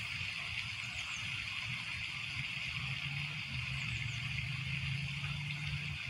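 Lake-side ambience: a steady hiss with the low, steady hum of a distant motor underneath, which grows more distinct about two seconds in.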